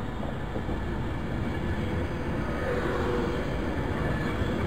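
Virgin Trains Class 390 Pendolino electric train running along the platform: a steady rumble of wheels on rail that grows slightly louder, with a faint hum coming in about halfway through.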